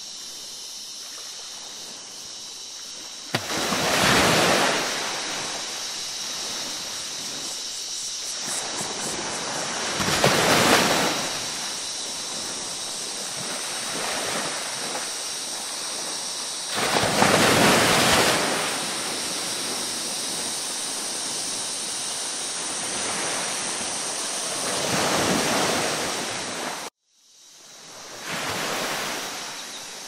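Ocean waves surging in and washing back, five swells about six or seven seconds apart over a steady hiss. The sound cuts out abruptly for a moment a few seconds before the end and then swells back in.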